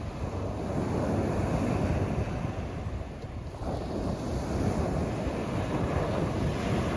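Sea surf rolling in on the shore: a washing noise that builds over the first three seconds, eases briefly, then surges again. Wind rumbles on the microphone underneath.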